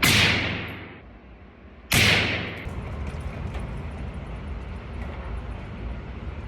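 Two rifle shots from an AR-15 chambered in 6.5 Grendel: one at the start and one about two seconds later, each a sharp crack with a long fading echo. These are part of a three-shot group fired to check the scope's zero.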